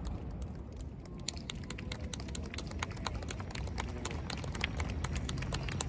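Fireworks crackling: many small sharp pops and clicks from the fading stars of a burst, thickening about a second in, over a low rumble.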